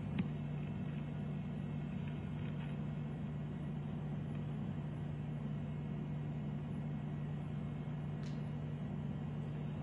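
Steady low hum with a hiss over it, the background noise of police body-camera footage being played back, with one sharp click just after the start.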